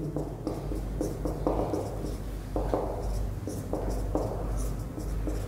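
Marker pen writing on a whiteboard: a run of short, irregular strokes.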